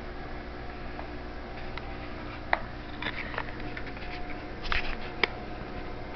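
A few scattered light clicks and taps of small screws, a screwdriver and computer parts being handled, over a steady low hum.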